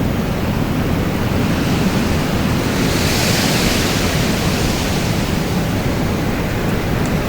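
Wind blowing: a steady low rumble, with a gust swelling into a higher hiss about three seconds in and easing off a couple of seconds later.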